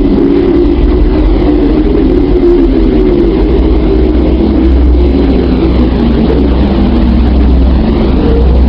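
A space-sound sonification, electromagnetic wave data from a solar-system body converted into audio. It plays as a loud, steady, rushing drone with a deep low hum beneath it and a dense rumbling band in the middle, slowly wavering throughout.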